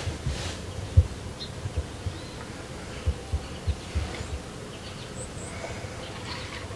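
Soft, low thumps and knocks: one about a second in, then a quick run of four between about three and four seconds in, with a few faint high chirps.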